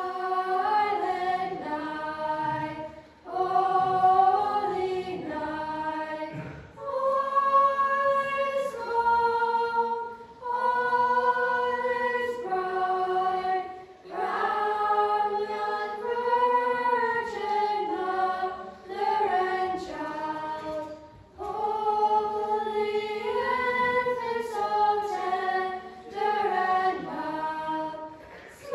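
Small youth choir of girls and boys singing unaccompanied in parts, holding sustained notes in phrases separated by brief breaths.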